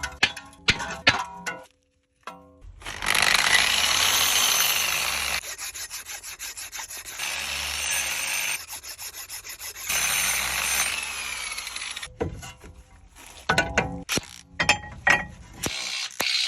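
Hand-tool and power-tool work on car brakes. First comes a quick run of sharp ratchet-like clicks. Then a power tool runs in several spells, pulsing in places and winding down with a falling whine, before more clicking near the end.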